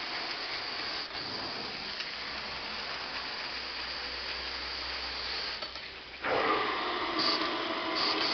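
Truck-mount carpet extractor's cleaning wand working carpet with hot water, a steady hiss of suction and spray. About six seconds in, the sound jumps louder and takes on a whistling tone as the wand head tips up off the pile, letting air rush into the vacuum.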